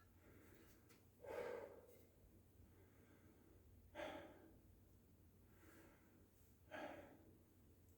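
A man breathing hard during a slow stretching and mobility exercise. Three faint, short breaths out come about every two and a half to three seconds, with a weaker one between the last two.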